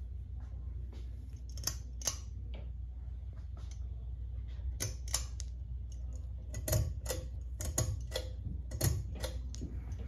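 Hunter Granville ceiling fan spinning up from a standstill, with irregular light clicks and ticks, more of them in the second half, over a steady low hum.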